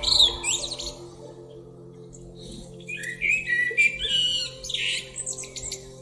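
Male common blackbird singing: the tail of one phrase, a pause of about two seconds, then a full phrase of low fluted whistles that breaks into a quick, high twittering ending.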